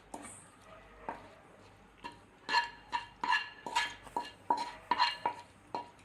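A spoon stirring thick dosa batter in a metal vessel, clinking against the side in quick, irregular taps that start a couple of seconds in.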